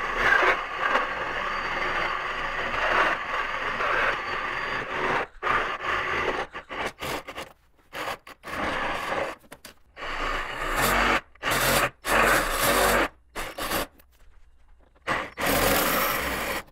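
Power tool cutting through a plastic car bumper: a loud scraping, rasping noise in a series of bursts, each stopping abruptly, with short quiet gaps between them.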